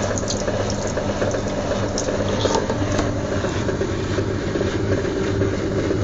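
Whirlpool washing machine draining at the start of its spin cycle: rinse water gushes from the drain hose into a laundry sink over the machine's steady pump and motor hum.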